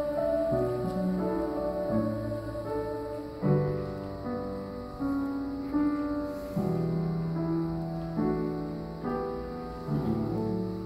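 Piano playing slow chords, about seven of them, each struck and left to ring and fade, as a choir piece closes with the singers silent.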